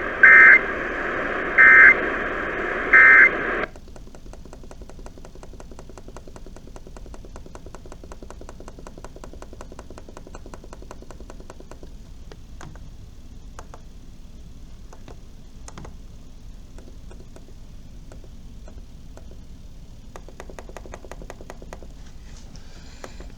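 Emergency Alert System end-of-message code: three short bursts of warbling digital data tones about a second apart, sent over the radio feed. They close a monthly test. About four seconds in the broadcast audio cuts off, leaving a faint steady hiss with fine clicking.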